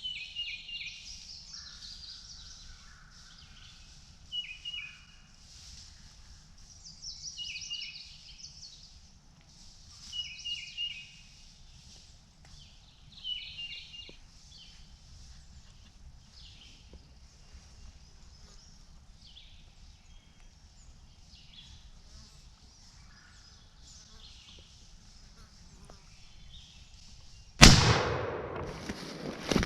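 Songbirds singing short repeated phrases every few seconds. Near the end a single very loud shotgun shot rings out and dies away.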